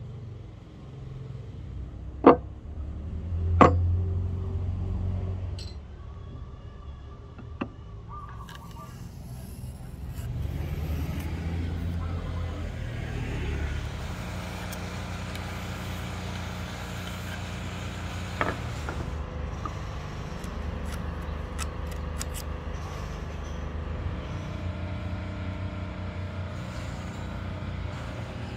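Two sharp knocks about a second apart, wood on a wooden workbench, over a low steady rumble like vehicle traffic; a few lighter clicks follow later.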